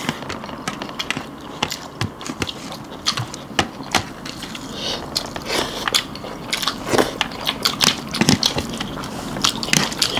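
Close-up eating sounds: chewing, biting and lip smacks, with many short, crisp clicks scattered throughout.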